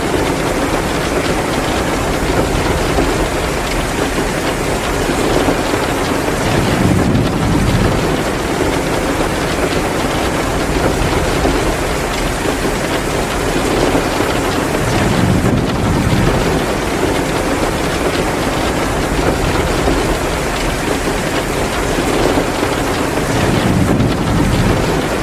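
Heavy rain pouring steadily, mixed with a crackling wood fire in a fireplace. A low swell rises and falls about every eight seconds.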